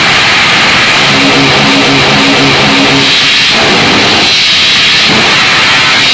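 Harsh digital noise music: a loud, dense wall of hiss and distortion. About a second in, a pitched loop stutters about four times a second for roughly two seconds, then gives way to abrupt cut-up breaks.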